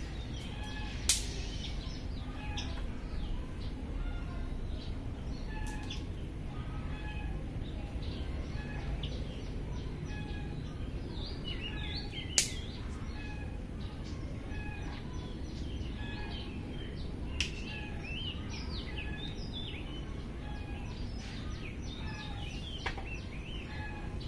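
Birds chirping over a steady low background rumble, with a few sharp clicks about 1, 12, 17 and 23 seconds in, the loudest about halfway through.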